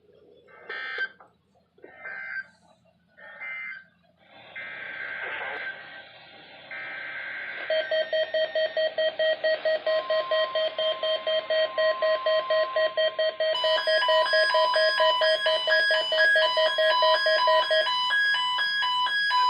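Weather-radio test signalling: three short bursts of data tones, then weather alert radios sounding their beeping alarms. A rapidly pulsing beep is joined by further beeping tones, so that several alarms overlap loudly until the last second or so.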